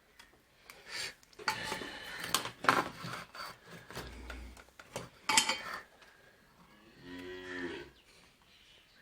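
Irregular scraping and rubbing with sharp clicks for a few seconds, then a low animal call with a steady pitch, about seven seconds in, lasting under a second.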